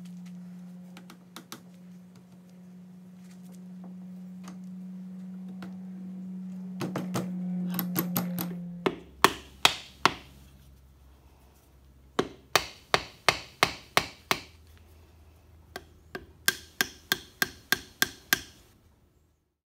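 A steady low hum for about the first nine seconds, then a mallet striking a wooden shovel handle in runs of sharp blows, about three to four a second, with short pauses between the runs.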